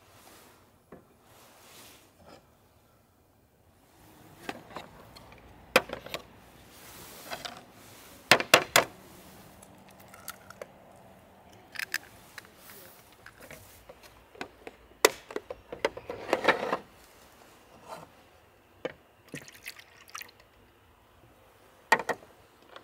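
Kitchenware handling on a wooden camp table: several sharp taps and clinks, one cluster fitting an egg being cracked into a clear plastic mixing bowl. Near the end, milk is poured from a plastic measuring jug into the bowl.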